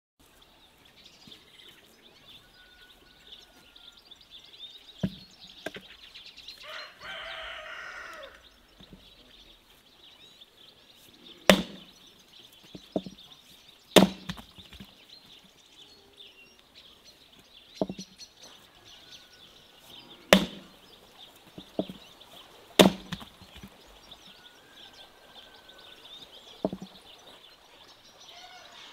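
Axe splitting firewood on a wooden chopping stump: about ten sharp cracks spaced a few seconds apart, some louder than others. A rooster crows once about seven seconds in, a call of about a second and a half.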